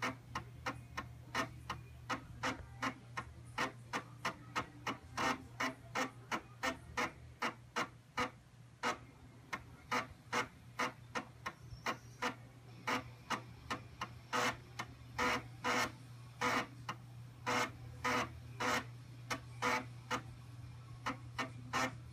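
Commodore Amiga A1000's floppy drive ticking steadily, about two clicks a second, over a steady low hum.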